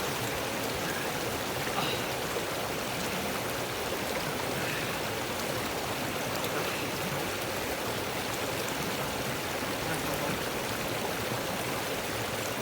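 Small mountain creek flowing steadily: an even, unbroken rush of running water.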